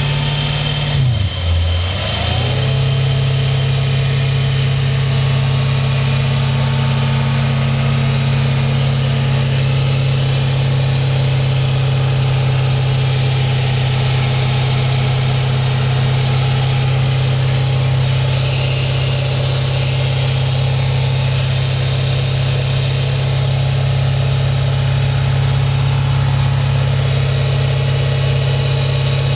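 2004 Audi S4's 4.2-litre V8 idling with the knock that the owner is chasing. About a second in, the engine speed dips briefly and recovers, then it runs steady.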